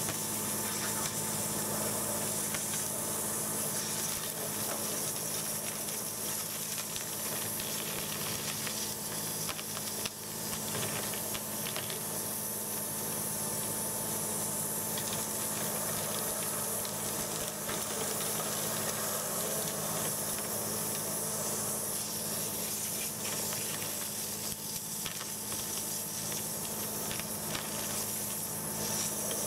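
High-pressure water jet from a Warthog hydrojetting nozzle blasting through a clear 4-inch pipe, a steady hiss as it washes out the blockage, over a steady mechanical hum. The hiss dips briefly about ten seconds in.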